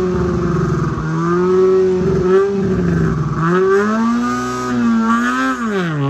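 Hatchback rally car's engine revved at the start line, its pitch swelling up and down several times. About halfway it climbs and is held higher, then drops back near the end.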